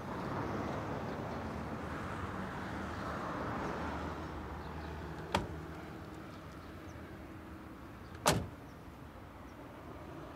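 A car door clicks open about five seconds in and is slammed shut about three seconds later. The shut is the loudest sound, heard over a steady hum of distant traffic.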